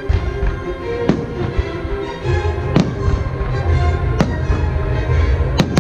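Fireworks shells bursting with music playing throughout. There are four sharp bangs, spaced a second or more apart, over a low rumble of bursts that thickens about two seconds in.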